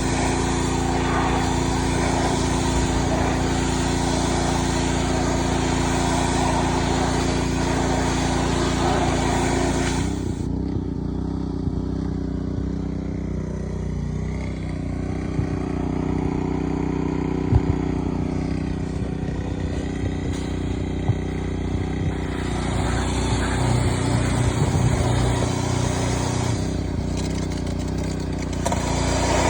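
Engine-driven pressure washer running steadily, with the hiss of the water spray for about the first ten seconds. The spray stops while the engine keeps running, then returns in the last third.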